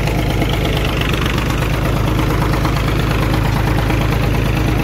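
Sonalika tractor's diesel engine running steadily, heard from the driver's seat close to the engine and exhaust stack.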